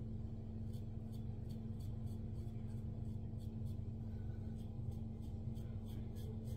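Double-edge safety razor scraping through lathered stubble in quick, short scratchy strokes, several a second, over a steady low hum.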